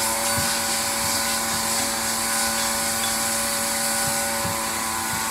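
An electric motor running steadily with a constant whine and airy rush, like a household appliance left on.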